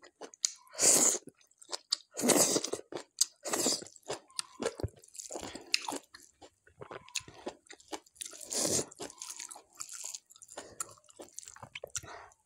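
Close-miked chewing with repeated crunches: a person biting and chewing mouthfuls of rice and crunchy food eaten by hand, in separate bursts every second or two.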